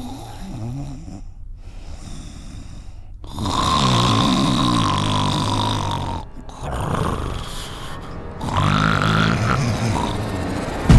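A person snoring loudly, with two long snores: the first starts about three seconds in and the second about eight and a half seconds in.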